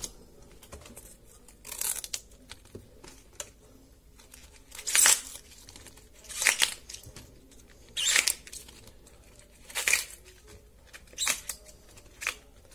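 Tough outer leaves of an artichoke being snapped and torn off by hand: a short, crisp tearing sound about seven times, a second or two apart.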